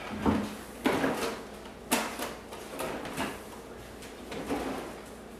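Kitchen drawer being slid open and rummaged through, with a series of knocks and clatters, loudest in the first two seconds.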